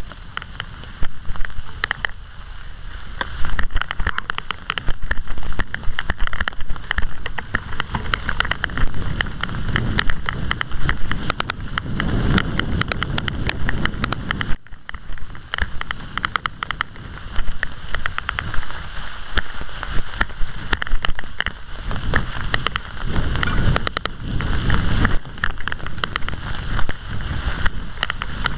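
Mountain bikes rolling over a trail carpeted with fallen leaves: a continuous crackling, patter-like rustle of tyres through the leaves, dense with small clicks and rattles as the bike and camera jolt along. At times it turns into heavier, deeper rumbling.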